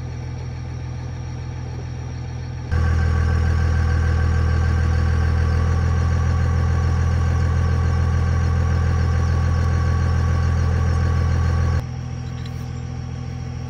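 Wrecker's engine idling steadily, a low even hum that gets louder from about three seconds in and drops back near the end.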